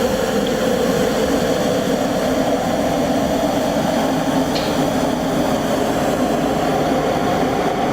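Steady truck-engine-like drone from a sound effect for a toy street sweeper truck. It holds an even level throughout and cuts off abruptly.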